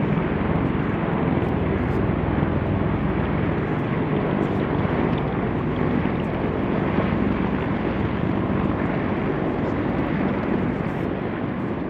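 MV-22 Osprey tiltrotors and CH-53 heavy-lift helicopters flying past low, their rotors and turbine engines making a steady, loud drone.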